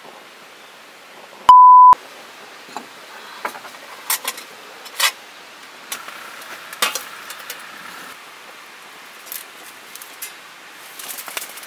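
A short, loud, single-pitched electronic beep about a second and a half in, with all other sound blanked while it lasts. After it come a few sharp clinks and taps of metal cookware and tongs.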